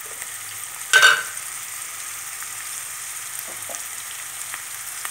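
Chopped onions sizzling steadily in olive oil in a frying pan, sautéing as they start to take colour. One sharp clack about a second in, and a couple of faint ticks later.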